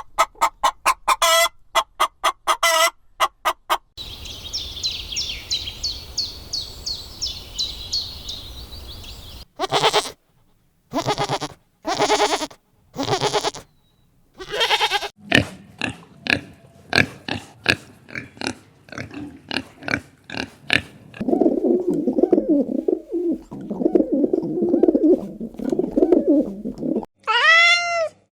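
A string of farm animal calls cut one after another: a hen clucking, then a chorus of high chick peeps, then pigs grunting in short repeated calls. Near the end a cat begins to meow.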